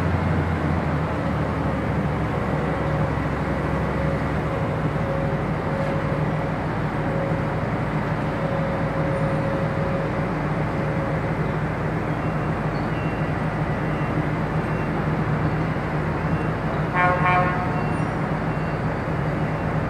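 Steady low drone of heavy port machinery running, with a warning beeper sounding at even intervals from about two thirds in and a short horn toot near the end.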